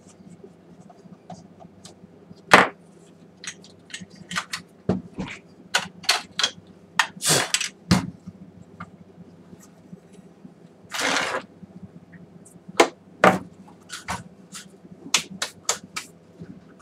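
Clicks, knocks and scrapes of a plastic projector casing and its parts being handled and pulled apart, with two longer scrapes, one about seven seconds in and one near eleven seconds.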